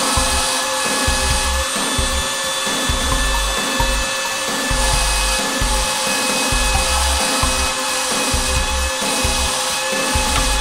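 Air Hogs TRON Legacy Light Cycle's suction fan (vacuum motor) running with a steady whine and hiss while it holds the toy to the ceiling, with a low throb coming and going underneath. The toy is stuck, its wheels lacking the traction to drive.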